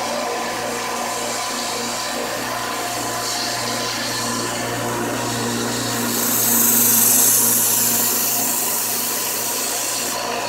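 A dull kitchen knife being sharpened against an abrasive, over a steady motor hum; the grinding hiss grows louder from about six seconds in and eases off about ten seconds in.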